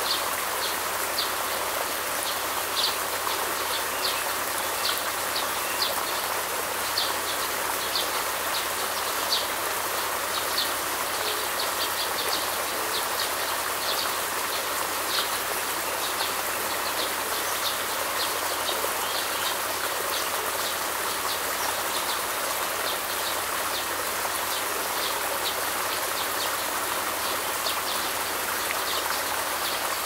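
Small stream running over branches and debris: a steady rush of water with frequent short, high plinks of water drops.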